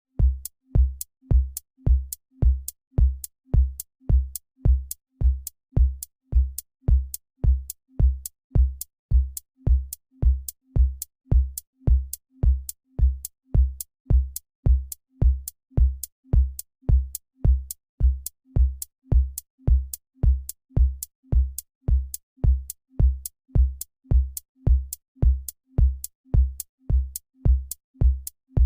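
Electronic drum-machine loop: a deep kick-drum thump with a sharp click on top, repeating evenly about twice a second without change.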